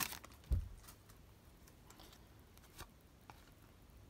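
Faint handling of trading cards just taken from a torn foil pack: a few soft clicks and rustles of card stock, with a dull bump about half a second in, then only occasional faint ticks.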